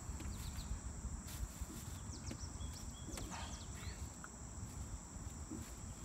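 Insects droning steadily on one high note, with a few short high chirps near the middle, over a faint low rumble.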